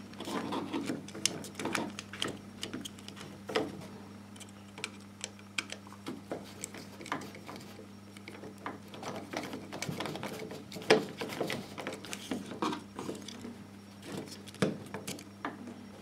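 Irregular small clicks and taps of a screwdriver on the terminal screws and of wires and the chrome metal plate being handled while the dimmer switch is wired. One sharper click comes about eleven seconds in, over a steady low hum.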